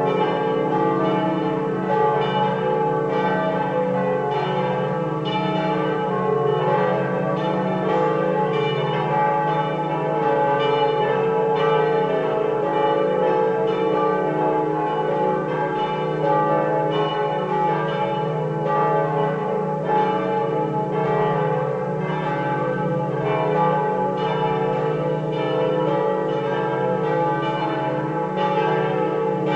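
Swung church bells from a peal of five bronze bells tuned D, E, F sharp, G and A, cast or recast by Pruneri of Grosio in 1901, ringing together. Their strokes overlap in a continuous, uneven clangour of ringing tones.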